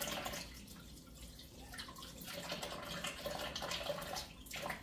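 Kitchen faucet running onto a cured goose breast held in the stream, water splashing into the sink as the meat is rubbed clean of its cure. The splashing thins for a moment near the start, then fills back in.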